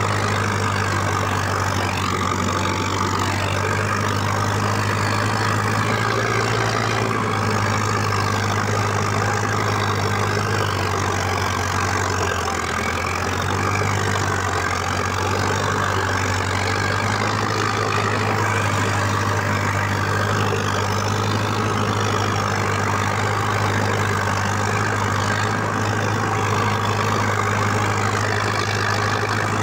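Preet 6049 tractor's diesel engine running steadily under way, heard from the driver's seat just behind the upright exhaust stack; the engine note dips briefly about halfway through.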